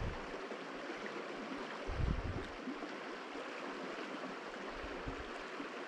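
Steady rush of fast-moving river water, with one brief low thump about two seconds in.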